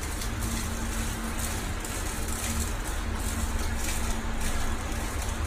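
Hot water pouring from a kettle in a steady stream, splashing through a wire-mesh cage trap onto a tiled floor, over a steady low rumble and a faint hum.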